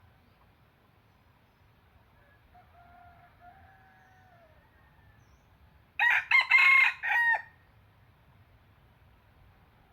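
Red junglefowl rooster crowing: one loud, short crow of a few linked notes about six seconds in, preceded by a fainter, more distant crow.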